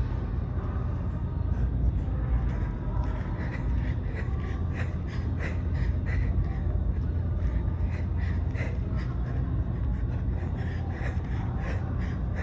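A person breathing heavily from exertion, quick short breaths at about three a second from a few seconds in, over a steady low rumble.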